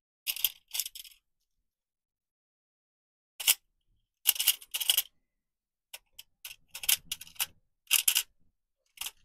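Hands rummaging through a clear plastic compartment organiser box of small parts: short sharp clicks and rattles of plastic and small pieces, in irregular clusters with pauses between.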